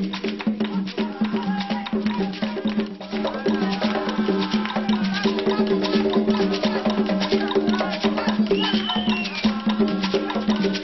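Upbeat Latin dance music with a steady beat: wood-block clicks and shaker percussion over a repeating low melodic pattern.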